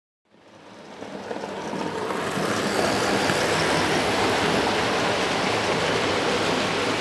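A train running on rails: a steady rushing noise with a faint low hum underneath. It fades in from silence over about the first two seconds, then holds steady.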